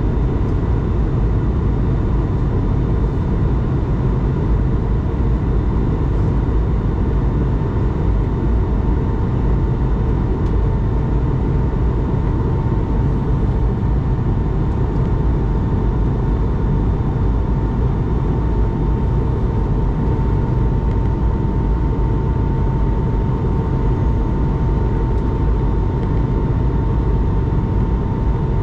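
Steady cabin noise of an Airbus A220-300 in flight: a deep rush of air and engine noise with a thin, steady whine from its Pratt & Whitney PW1500G turbofans. The whine grows a little stronger near the end.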